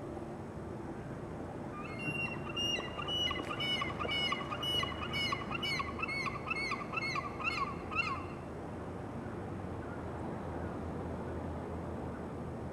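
Birds calling: a rapid run of repeated pitched calls, about three a second, starting about two seconds in and lasting some six seconds, over a steady low rumble.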